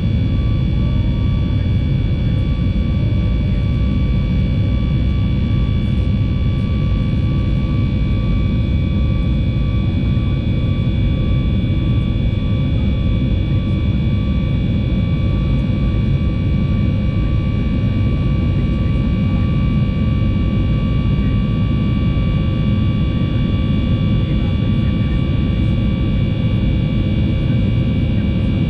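Inside the cabin of a Boeing 737 MAX 8 climbing after takeoff: its CFM LEAP-1B jet engines at climb power give a loud, steady, deep roar with several thin steady whining tones over it.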